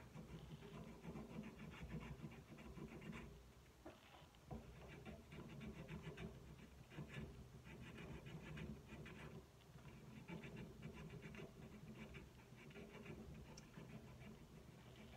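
A strip of sandpaper drawn back and forth around the cork of a clarinet tenon, a quiet rasping in runs of quick strokes, pausing briefly about four seconds in and again near ten seconds. The newly glued cork is being sanded down to fit.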